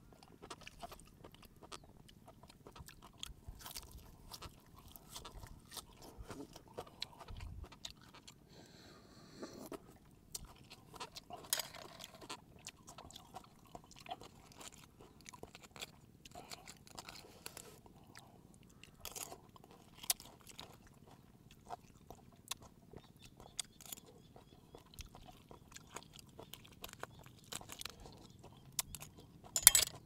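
Raw spiny lobster being handled and cut: a run of small clicks, cracks and scrapes of shell and knife, with some chewing, and one louder crack near the end.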